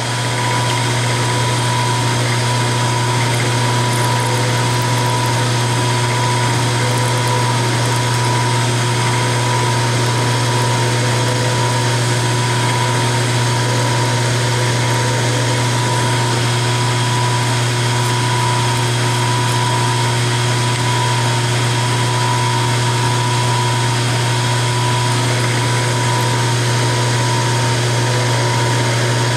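Milling machine spindle running steadily as a number 21 twist drill bores a tap-drill hole for a 10-32 thread into an aluminum block. A steady low hum with a steady higher whine runs throughout.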